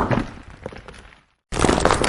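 Stones falling and clattering: a dense run of knocks that dies away over about a second. After a moment of dead silence, the clatter starts again abruptly at full strength.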